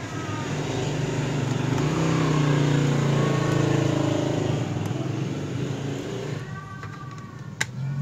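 A passing motor vehicle's engine, swelling to its loudest around the middle and fading away, with a sharp click near the end.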